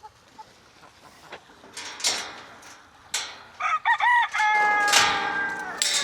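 A rooster crowing once in the second half: a few short rising-and-falling syllables, then a long held note that drops away at the end. A few short sharp sounds come before it.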